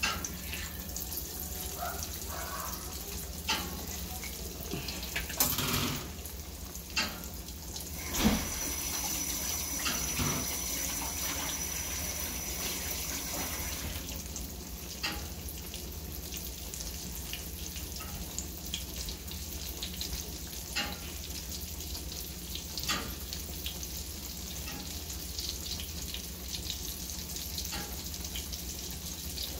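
Dredged porgy fillet frying in hot oil in a stainless skillet: a steady sizzle that comes up as the fish is laid in, with scattered pops and crackles.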